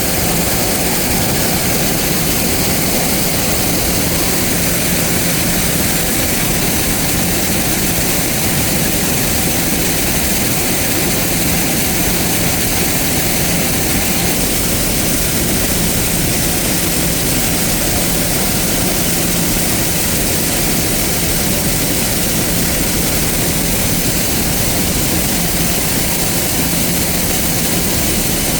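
Silo-filling machinery running steadily while chopped corn silage is blown into the silo: a loud, even rush with a steady low hum.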